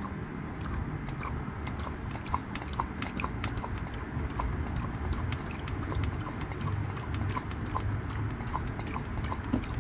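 Hand-operated brake bleeding vacuum pump being squeezed over and over, clicking about twice a second as it sucks old brake fluid out of the master cylinder reservoir.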